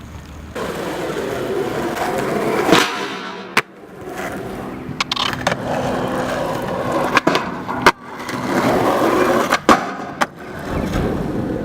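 Skateboard wheels rolling over pavement, the rolling swelling and fading several times. Three times the roll is broken by a pair of sharp clacks: the board popping off and landing on a trick over a barrier.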